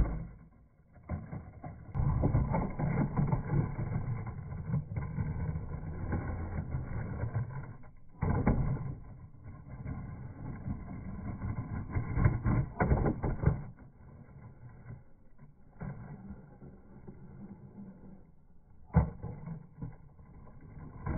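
Skateboard trucks, Tensor Mag Lights, grinding along the edge of a concrete curb, with the wheels rolling on pavement between grinds: several long scraping runs, louder in the first two-thirds and quieter near the end, with a sharp knock of the board near the end.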